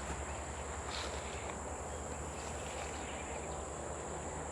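Steady high-pitched drone of insects over a low rumble, with a couple of faint knocks about a second in.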